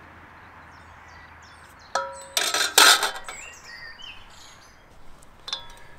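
Metal Omnia oven pans being handled and set down on a concrete table. A ringing metallic clink comes about two seconds in, followed by about a second of loud scraping clatter, then a lighter ringing clink near the end. Birds chirp faintly in the background.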